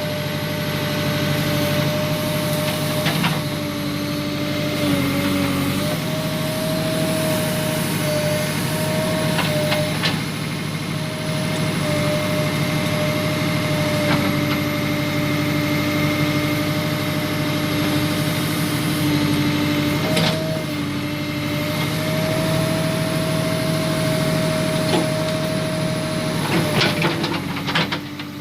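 Tractor loader backhoe's diesel engine running steadily, with a constant whine over it and a few brief knocks.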